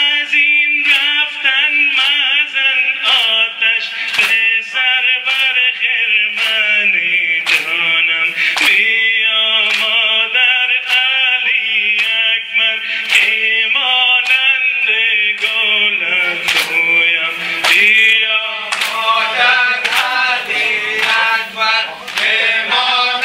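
A man chanting a Persian noha (Muharram lament) with a steady beat of sharp strikes under it: mourners beating their chests in time (sina zani).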